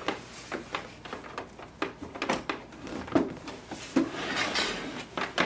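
Handling noise: a power cord's plug pushed into the back of a small plastic laser printer, the cable rustling, and the printer's plastic casing knocking and sliding on the table as it is gripped and turned. Scattered soft clicks and knocks with rustling between them.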